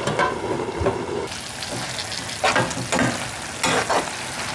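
A pan of squash blossoms with onion and chile sizzling as it cooks, with several knocks and scrapes of metal: the pan's metal lid being taken off near the start and a metal spoon against the pan.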